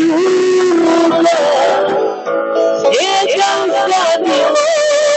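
Music: a Romani-style song, a voice singing with vibrato over plucked guitar accompaniment, with long held notes.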